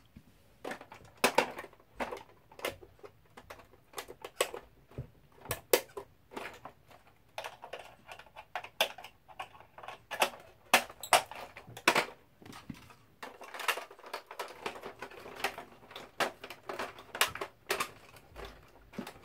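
Irregular clicks, clacks and knocks of hard plastic as a Bruder John Deere 7930 toy tractor and its front loader are handled and fitted together.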